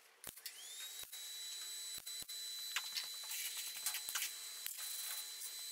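Faint sheet-metal welding: scattered sharp clicks and a few short crackling bursts as small tacks are laid along a steel panel seam. A high-pitched whine rises about half a second in and then holds steady.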